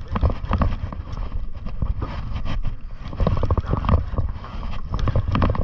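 Wind rumbling on the microphone and water noise around a small boat at sea, with many irregular sharp clicks and knocks throughout.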